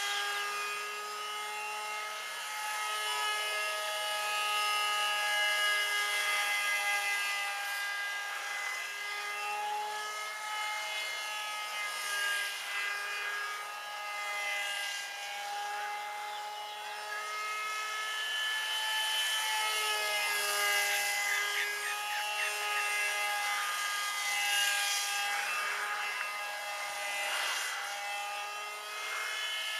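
Electric motor and propeller of an RCPowers F-22 foam model jet in flight, a steady droning hum whose pitch wavers slightly and swells and fades as the plane turns.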